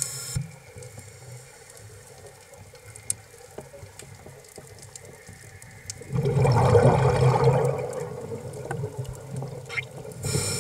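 Scuba diver's breathing through a regulator underwater. It is quiet at first, then about six seconds in a loud burst of exhaled bubbles gurgles for about four seconds, and near the end the high hiss of an inhalation starts.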